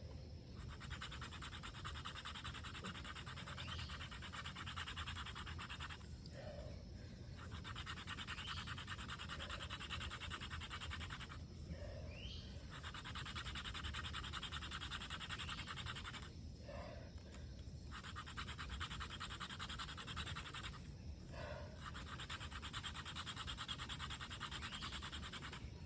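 Hand-drill spindle spinning back and forth between the palms in a wooden hearth board: a steady, fast, scratchy friction noise in runs of about five seconds, broken by four short pauses. The drill is being worked with more pressure and speed to build an ember.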